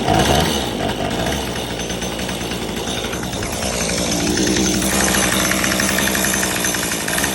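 Weed whacker engine fitted to a Power Wheels ride-on car, running steadily and loudly just after being started and warming up.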